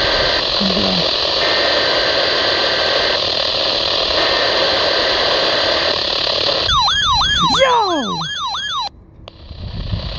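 Steady radio static hiss from a weather-radio receiver with no broadcast audio. About seven seconds in, a run of rapidly repeating falling chirps, about four a second, sounds for about two seconds. The audio then cuts out briefly before the hiss returns.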